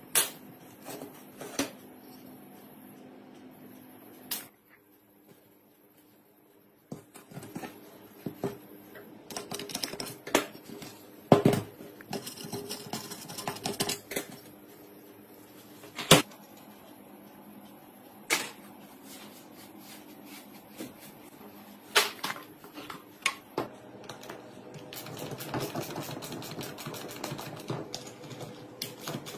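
Scattered metal clanks, taps and scrapes from an old electric water pump being taken apart by hand. Near the end comes a denser stretch of rattling and scraping as a nut driver works the bolts of the pump casing.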